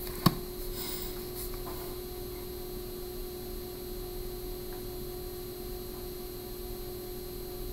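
Quiet room tone with a steady hum, and one short click just after the start.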